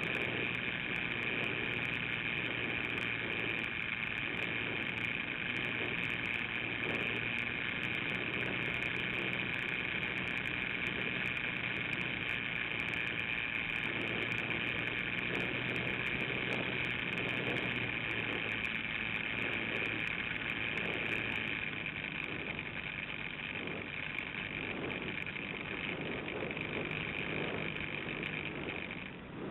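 Model airplane's motor and propeller heard from a camera on board in cruising flight: a steady high whine with airflow rush. The whine drops away at the very end, as the throttle is cut back.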